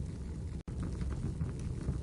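Fireplace fire burning with a steady low rumble and a few faint crackles. The sound cuts out for an instant a little over half a second in.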